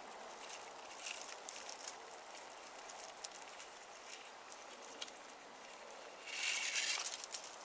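Faint clicks and rustles of dry branch tines and cord being handled as the ties on a handmade stick rake are undone, with a louder rustling stretch about six seconds in.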